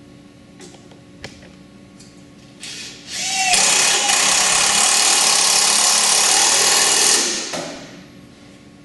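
Cordless drill driving a self-tapping screw through the snowmobile's metal tunnel into the rack's tubing. A few light clicks, a short spin, then about four seconds of loud, steady drilling that stops near the end.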